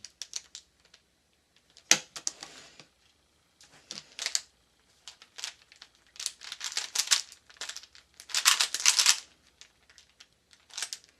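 Rubik's brand 3x3 cube being turned by hand: quick runs of clicking, rattling plastic layer turns, broken by short pauses, with the densest runs in the second half.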